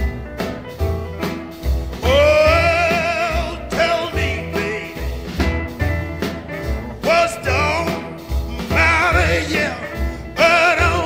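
Electric blues recording: a singer's wordless, wavering howls, each sliding up into a long held note, over a repeating one-chord guitar riff with bass and drums.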